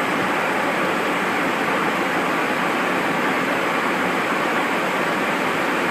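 Steady rushing cabin noise inside a Cessna Citation Encore business jet in flight: airflow and turbofan engine noise, even in level throughout.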